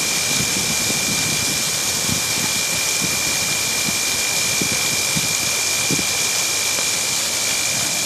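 Automatic truck tyre washer's water jets spraying at full pressure, a loud steady hiss with water splashing onto the metal floor grates. A thin, steady high tone runs through it.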